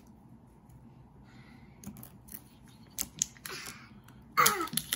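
Ramune soda bottle being opened by hand: light plastic clicks from the cap and opener, then, near the end, a loud sudden burst as the marble is pressed down into the neck to unseal the carbonated bottle.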